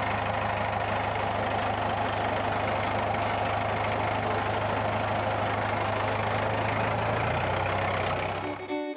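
Massey Ferguson farm tractor's diesel engine running steadily as the tractor drives. Near the end the engine sound cuts off and a fiddle tune begins.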